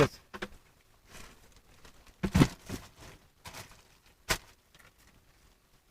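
Fishing gear being handled and packed: rustling with a few knocks, the loudest about two and a half seconds in and a sharp click about four seconds in.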